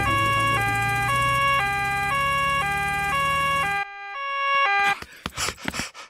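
Cartoon ambulance two-tone siren, a high and a low note alternating about twice a second, over a low steady hum. The hum stops about two-thirds of the way through and the siren ends near the end.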